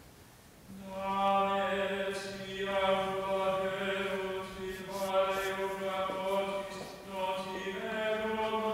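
Slow sung liturgical chant: long held notes that change every two seconds or so, with brief breaks between phrases.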